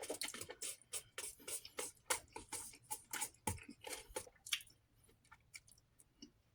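Close-miked chewing of a mouthful of fried egg, rice and carrot: a quick run of wet mouth smacks and clicks for about four and a half seconds, then only a few faint ones.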